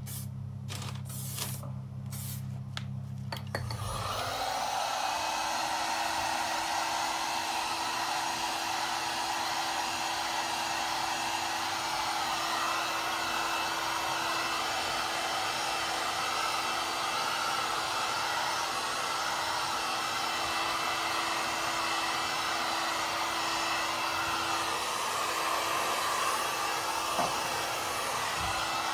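A few short hisses from an aerosol lacquer can, then about four seconds in an electric heat gun switches on and runs steadily, blowing hot air with a constant hum to dry fresh lacquer on a brake caliper.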